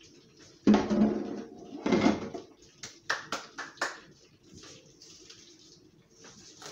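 Kitchen clatter from utensils and dishes being handled: two heavy knocks about one and two seconds in, then a quick run of about five light clinks.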